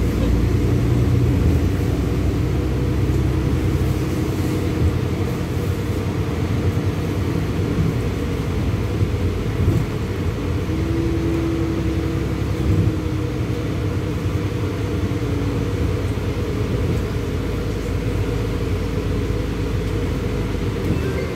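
Cabin noise inside a LiAZ-6213.65 articulated city bus on the move: a steady low engine and road rumble. A faint humming tone rises out of it for a few seconds about halfway through.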